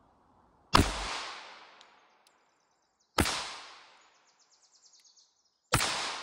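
Three shots from a SAR K2-45 pistol firing .45 ACP, about two and a half seconds apart, each report trailing off over about a second.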